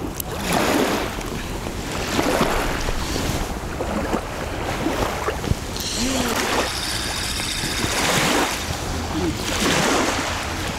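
Small waves lapping at the reservoir shore, a wash that swells and fades every second or two, with wind.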